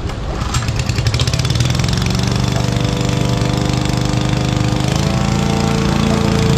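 Honda self-propelled lawn mower's engine running, with a quick rattle about half a second in; its note then rises over a few seconds as it comes up to speed and holds steady.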